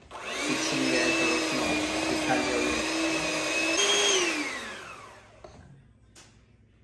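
Electric mixer running at speed, beating cream cheese frosting, then switched off about four seconds in, its pitch falling as the motor winds down.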